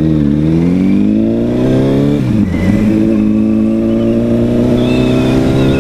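Honda CBR1000RR's inline-four engine accelerating from a stop. The revs climb, drop at a gear change about two seconds in, then rise again more slowly in the next gear.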